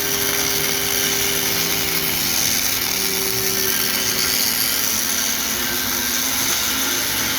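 Fronius CMT MIG welding arc running steadily on aluminium, laying down a layer of additive weld bead: an even, dense crackling hiss with a steady low hum under it.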